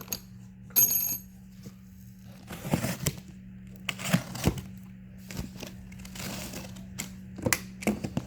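Steel bolts, studs and washers clinking and knocking as they are handled and set down, with one ringing metal clink just under a second in, and packaging crinkling in between. A steady low hum runs underneath.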